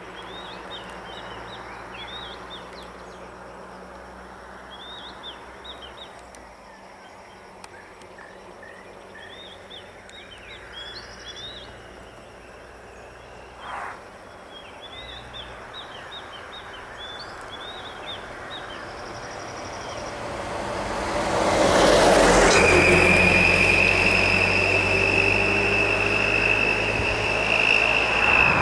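Birds chirping in short bursts over a quiet steady background. About three quarters of the way in, a bus's engine comes up loud close by and keeps running, with a steady high whine over it.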